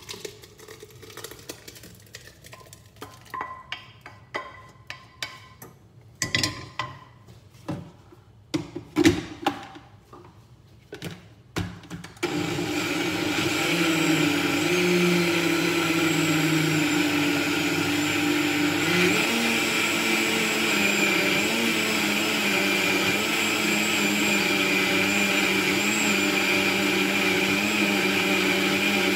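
Cooked lentil soup being poured from a pan into a countertop blender jug, with a run of knocks and scrapes of pan and spoon. About twelve seconds in, the blender motor starts suddenly and runs steadily, puréeing the soup.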